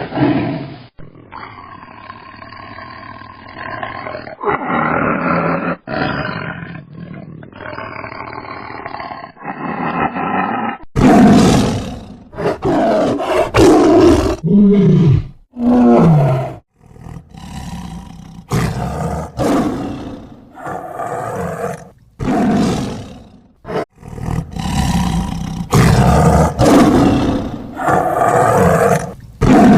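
Tigers roaring, one call after another, in several recordings spliced together. The first ten seconds or so sound duller and thinner, then come a run of loud, full roars, a couple of them falling in pitch.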